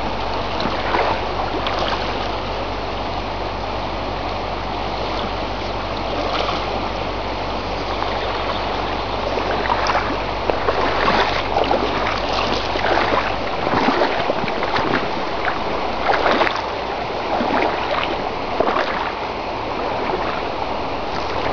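River water running and splashing over stones: a continuous rush with irregular louder splashes. A low steady hum underneath cuts off about two-thirds of the way through.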